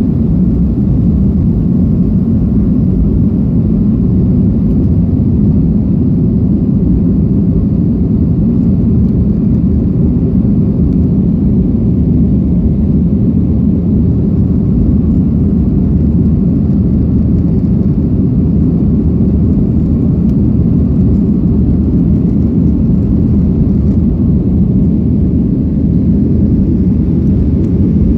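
Steady, loud low rumble of a Southwest Airlines Boeing 737's jet engines and airflow, heard from inside the cabin during takeoff.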